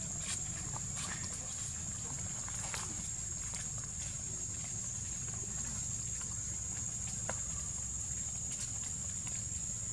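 Outdoor ambience: a steady high-pitched whine over a low steady rumble, with a few faint scattered rustles and clicks.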